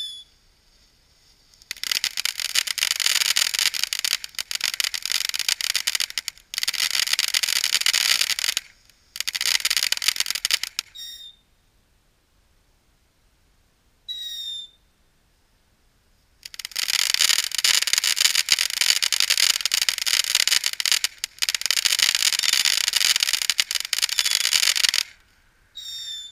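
Hop Kee "Love Out Loud" firework fountain giving off long spells of dense crackling, broken by short gaps, with a few brief piercing whistles between them.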